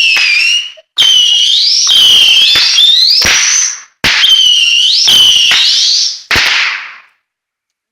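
Saturn Missile battery fireworks firing: a rapid string of shrill whistling shots, each rising in pitch, with sharp pops. The whistling comes in three runs with short breaks between, and ends with a hissing burst.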